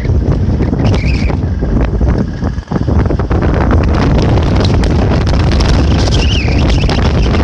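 A vehicle in motion heard from inside: steady low engine and road rumble, with wind buffeting the microphone.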